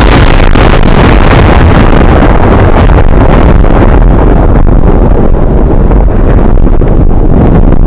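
A homemade sound effect: a very loud, distorted rushing rumble, heavy in the bass and overloading the recording, held steady without a break.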